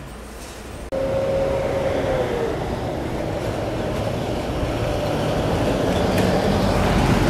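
A motor vehicle's engine running and slowly growing louder, with a steady hum that dips slightly in pitch about two seconds in; the sound starts abruptly about a second in.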